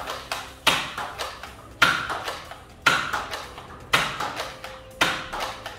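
Nerf Elite 2.0 Commander RD-6 spring blaster firing foam darts: a sharp snap about once a second, five in all, with lighter clicks between shots.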